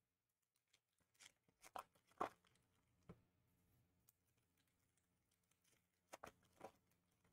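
Faint tearing and crinkling of Upper Deck hockey card pack wrappers being ripped open and handled: a cluster of short rips about a second in, the loudest just after two seconds, and two more near the end.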